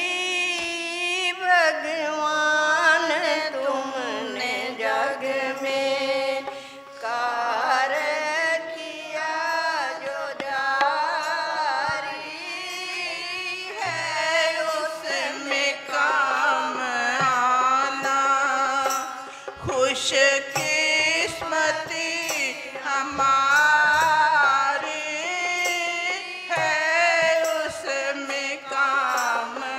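A Hindi devotional song (bhajan): a voice singing long, wavering lines with instrumental accompaniment.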